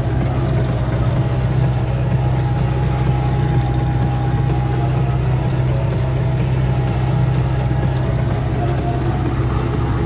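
Belarus 820 tractor's four-cylinder diesel engine running steadily under load while ploughing, heard from inside the cab.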